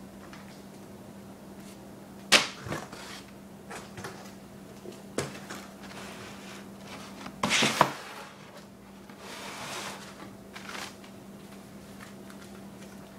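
Cardboard shoebox being handled and turned around on a wooden table: a few sharp knocks and scrapes, the loudest about two seconds in and a cluster near eight seconds, with a brief rustle around ten seconds. A steady low hum runs underneath.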